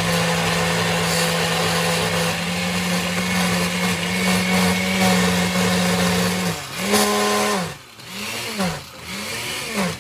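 Blender motor running steadily as it purées a thick jerk marinade of onion, herbs, garlic and ginger. Near the end it is pulsed about three times, the motor speeding up and dropping back with each pulse.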